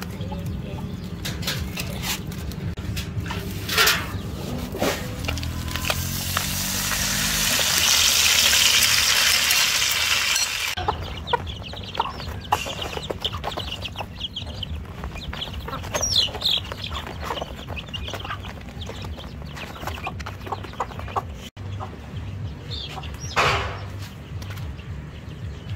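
A flock of domestic chickens (hens, a rooster and chicks) clucking and peeping while they peck at scattered grain, with one louder call near the end. About six seconds in, a rushing hiss swells for a few seconds and cuts off suddenly.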